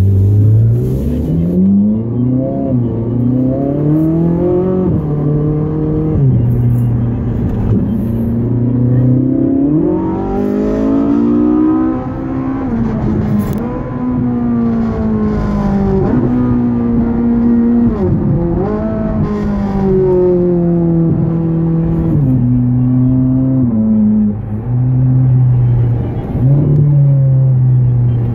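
Ferrari 458 Italia's 4.5-litre V8 heard from inside the cabin, accelerating again and again: the engine note climbs and then drops sharply at each upshift, between stretches of steadier running.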